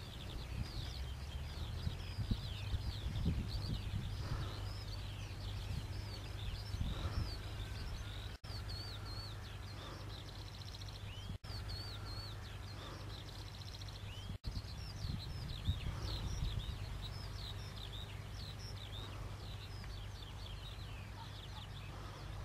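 Many small birds chirping and twittering over the steady low hum of a New Holland TM165 tractor's engine working across the field with a seed drill. The sound cuts out for an instant three times, near the middle.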